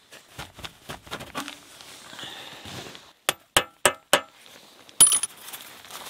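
Metal striking metal at the steel loader bucket and pivot pins of an old Kubota tractor: four sharp clinks about a third of a second apart, then a louder clang with a short high ring about five seconds in, amid softer handling and scuffing noises.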